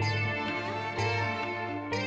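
Background music played on strings, holding long notes, with a change of chord about a second in and again near the end.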